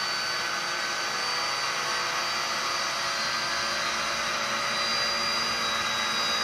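Small electric motor of a SkyRC 1/4-scale RC motorcycle spinning steadily with a high whine, powered from a bench supply at its 1.5 A current limit. It is running unchecked because the control board is not controlling the motor.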